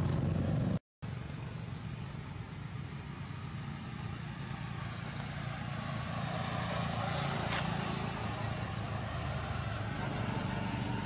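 Steady traffic noise from the road, a low hum with a broad hiss that swells as a vehicle passes about six to eight seconds in. The sound drops out briefly about a second in.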